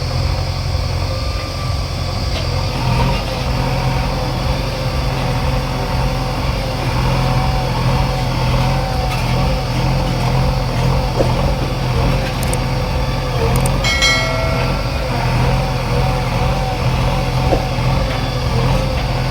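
JCB 3DX backhoe loader's diesel engine running steadily, with a faint wavering whine over it and a brief high-pitched tone about three-quarters of the way through.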